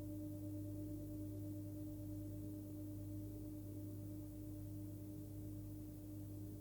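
A 27 cm hand-forged Full Moon singing bowl ringing with a low fundamental near 101 Hz (between G and G sharp) and higher overtones, fading slowly as it sustains.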